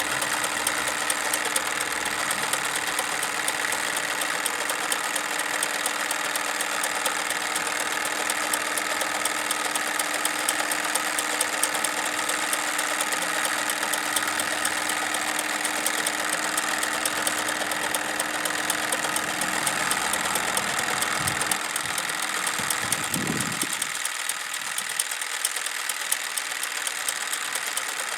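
Wilesco D22 toy steam engine running steadily, driving a Doll model sawmill, with a fast, even ticking chatter of the engine and belt-driven machinery. A steady hum underneath fades out near the end.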